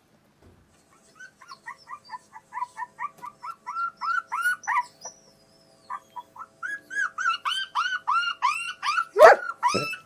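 A phone ringtone of quick rising-and-falling chirps, about four a second, growing louder, breaking off around five seconds in and starting again a second later. Near the end a German Shepherd gives one loud bark.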